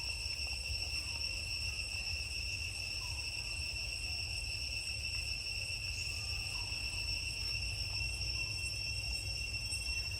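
Insects droning in a steady, continuous high-pitched buzz, with a low rumble underneath.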